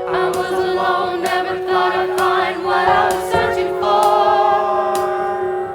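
A group of voices singing wordless harmonies in a song intro, over a steady held note.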